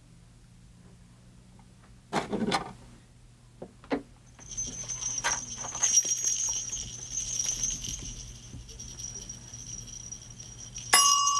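Small bells on the points of a jester mask jingle continuously, shaken as the mask moves under the wand's spell. Before that there is a brief sound about two seconds in and a couple of faint clicks. Near the end a steady single tone sets in.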